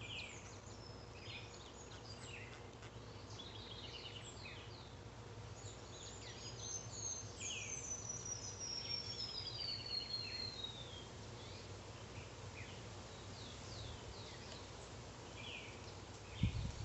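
Birds chirping and whistling in the surrounding trees, with one long whistle sliding down in pitch over a few seconds midway, over a steady low hum. A low rumble on the microphone starts near the end.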